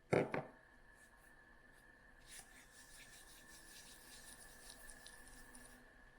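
Two quick knocks right at the start, then faint rubbing and scratching, over a faint steady high whine.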